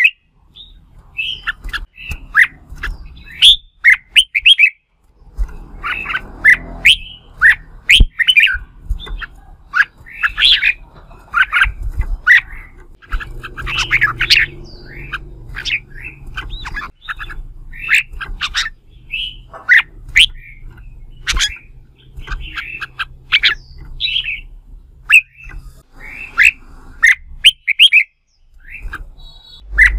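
Red-whiskered bulbul singing its competitive fighting song: loud, short, sharp whistled notes strung into quick chattering phrases, one after another with brief gaps.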